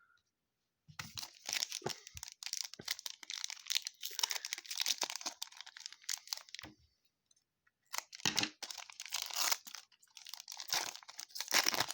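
Trading-card pack wrapper being torn open and crinkled by hand, in three spells of rustling with short pauses between them.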